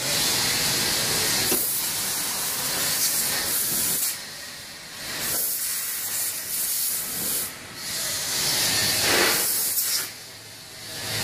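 Industrial pallet conveyor with modular chain tracks running: a steady hissing rush, easing off twice, about four seconds in and again near the end.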